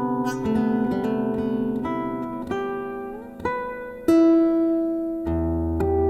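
Guitar played solo, notes plucked one after another over ringing strings, with a slide up in pitch about three and a half seconds in and a deep bass note entering near the end.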